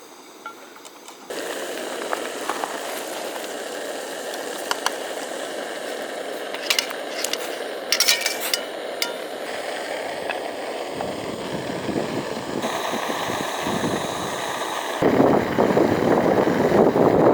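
Food cooking over heat, a steady hiss that grows louder near the end, with occasional light clinks of utensils.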